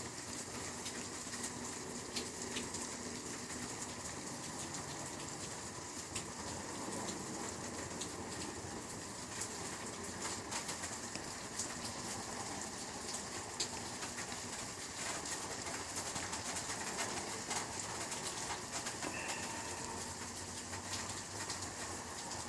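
Steady hiss of night ambience with scattered faint ticks and clicks; no thunder comes through from the distant lightning strike.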